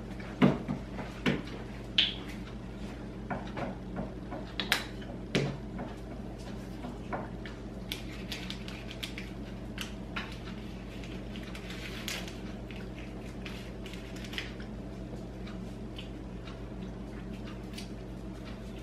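Kitchen handling sounds: a quick run of light clinks, as of a spoon stirring in a cup, then scattered light clicks and knocks of dishes and cutlery over a steady low hum.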